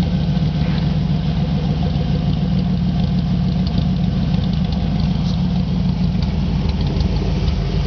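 Old fuel-injected Ford F-150 engine idling steadily, running cold shortly after a freezing-morning start.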